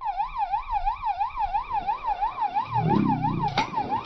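Electronic siren-like warbling tone, rising and falling about four times a second, with a brief lower sound and a click about three seconds in.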